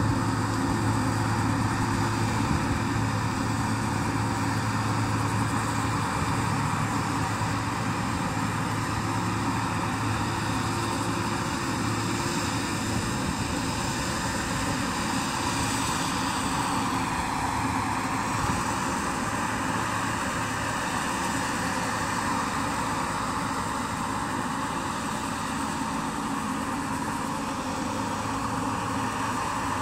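Combine harvester running steadily under harvest work, its engine humming low with high whines from the threshing and drive machinery. Just past the middle the whine dips in pitch briefly and comes back up, as under a passing load.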